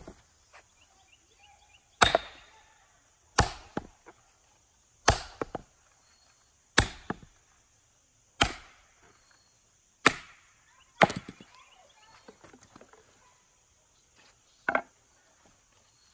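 A cheap axe swung hard onto a wooden stump, seven heavy wooden blows about a second and a half apart, overstriking so that the handle hits the stump's edge until the poorly grained handle breaks. A lighter double knock comes near the end.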